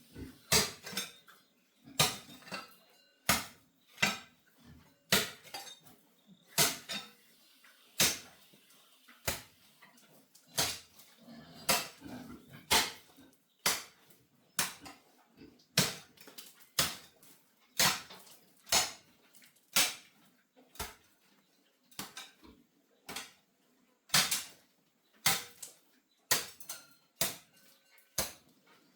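A metal hand tool striking hard ground or masonry over and over, sharp clinking blows at about one a second with uneven spacing.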